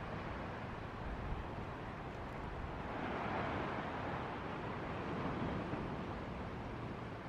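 Ocean surf: a steady wash of breaking waves that swells about three seconds in and eases off again, possibly with wind on the microphone.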